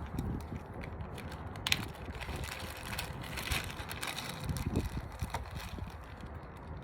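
Handling noises: scattered clicks, rattles and rustling of small objects being worked by hand, with one sharper click about two seconds in.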